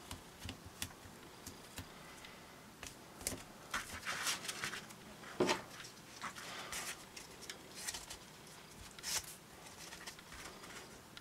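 Handling noises as foam handle pieces and tape are pressed and worked onto a LARP sword's grip: scattered light clicks, brief rustles and scrapes, with a soft knock about five seconds in.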